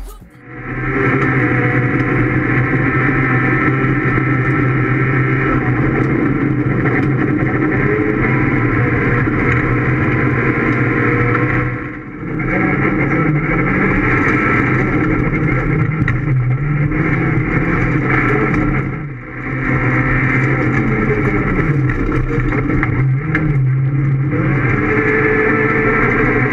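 Rally car engine heard from inside the cockpit, revving hard with the pitch rising and falling through gear changes. The sound drops away briefly twice, about twelve and nineteen seconds in.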